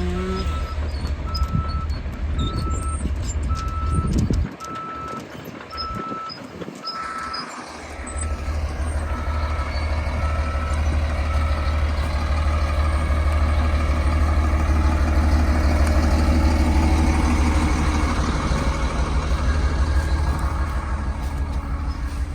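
Heavy diesel machinery running with a steady low drone, its reversing alarm beeping about once every 0.7 seconds for the first half and then stopping. The engine drone drops away briefly near the start and then comes back strongly.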